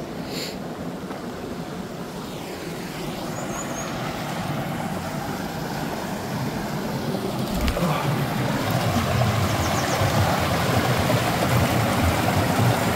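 Rushing water of a mountain waterfall and stream, a steady noise that grows louder about halfway through.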